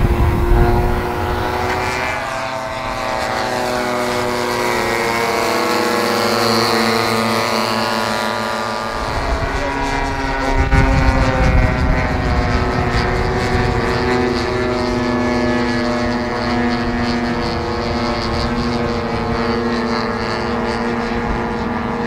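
Engines of several radio-controlled model Stampe biplanes flying in formation. Their tones overlap and drift up and down in pitch as the planes pass and change throttle.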